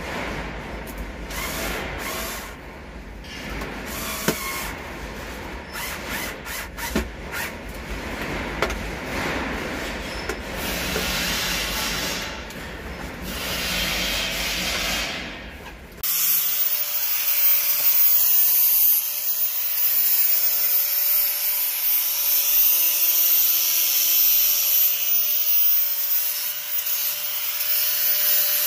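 Knocking and rustling of a gloved hand working at a John Deere 5320 tractor's dashboard instrument cluster, over a low hum. About halfway through it cuts to a louder, steady whir with a hiss: the edge of a cut glass gauge lens being sanded smooth.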